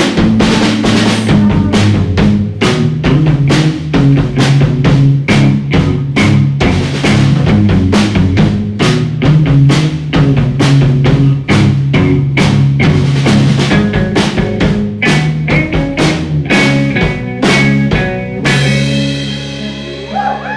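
A live rock band playing an instrumental passage on electric guitar, electric bass and drum kit, with the drums hitting steadily. Near the end the drums stop, and a held guitar and bass chord rings on and fades.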